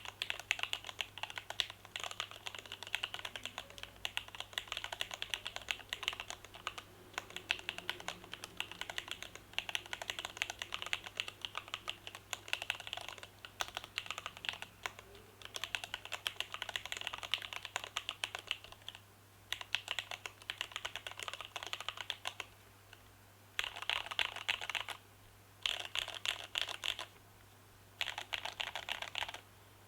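Fast typing on a Kiwikey Borderland ergonomic mechanical keyboard in a stacked-plate case, fitted with stock TTC Wild switches and Cherry snap-in stabilizers: a dense stream of key clacks, broken by a few brief pauses toward the end.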